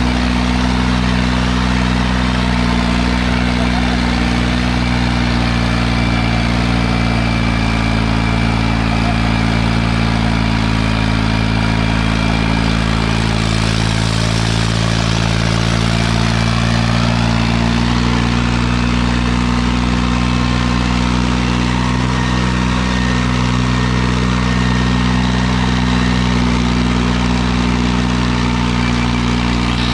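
Farmtrac tractor's diesel engine running steadily under load while pulling a harrow, its low drone holding a nearly constant pitch with a slight shift about halfway through.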